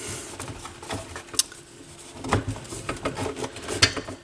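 Scattered light clicks and knocks of small turntable parts being handled and fitted by hand, over a faint steady hum.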